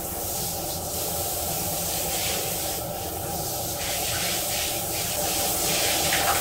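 Handheld shower head spraying water steadily.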